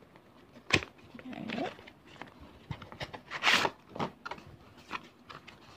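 Cardboard booster-box packaging being handled and opened: a sharp click, light rustling and small clicks, and a brief rasping scrape about three and a half seconds in as the brown inner box slides out of the printed outer box.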